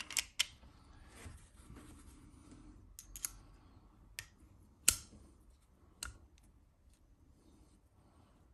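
Scattered sharp metallic clicks from a Nagant 1887 revolver being handled as its cylinder is fitted back into the frame. The sharpest single click comes about five seconds in.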